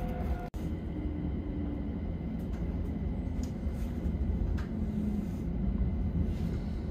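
Stockholm metro (tunnelbana) train heard from inside the car while running: a steady low rumble of wheels on the track with a faint motor hum and light ticks. The sound cuts out for an instant about half a second in.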